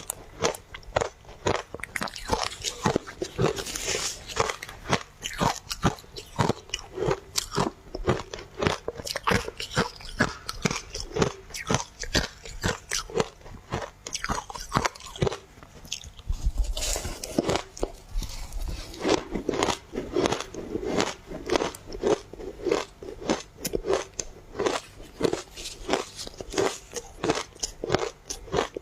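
A person biting and chewing ice dusted with matcha powder close to the microphone: a steady run of sharp crunches, several a second, with a short lull a little past halfway.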